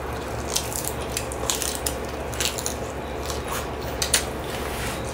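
Close-up eating sounds: biting and chewing raw vegetable stalks, a string of short crunchy clicks and wet smacks.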